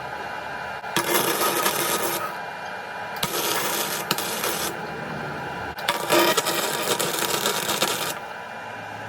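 Flux-core MIG welder arc crackling in short bursts of a second or two each, three times with pauses between, as tack welds are laid on steel box section.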